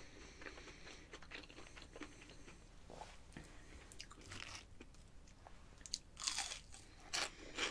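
Quiet close-up chewing, then crunchy bites into a breaded fried onion ring about six seconds in.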